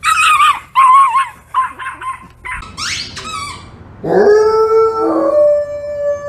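A run of short, wavering high-pitched cries, then about four seconds in a large golden-haired dog starts howling: one long howl that rises and then steps up to a higher held note.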